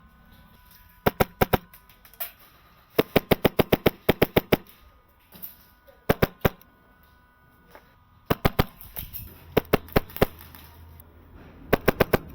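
HPA-powered airsoft rifle firing in short rapid bursts of sharp cracks, about ten shots a second, several bursts with pauses between.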